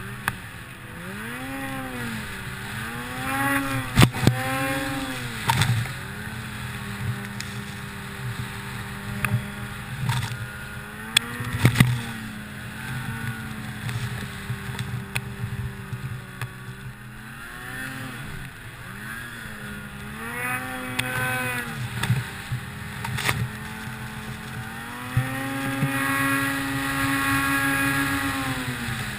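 2008 Ski-Doo Summit 163 800 cc two-stroke snowmobile engine revving up and down over and over as the rider works the throttle in deep snow, then held at high revs near the end. A few sharp knocks come through in the first half.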